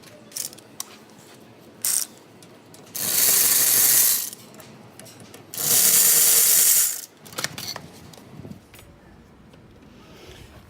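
Power ratchet spinning out the two 12 mm caliper slide bolts on a Honda Civic rear brake caliper: two steady runs of about a second each, one per bolt, after a couple of short clicks.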